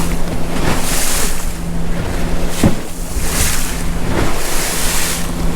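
Motor yacht running through choppy water. A steady engine drone sits under surges of water rushing and splashing along the hull, with a thump about two and a half seconds in. Wind buffets the microphone.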